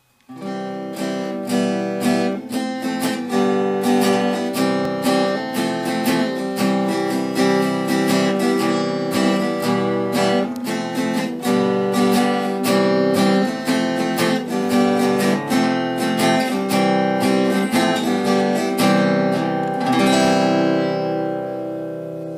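Acoustic guitar music: strummed chords in a steady rhythm, the last chord left ringing and fading near the end.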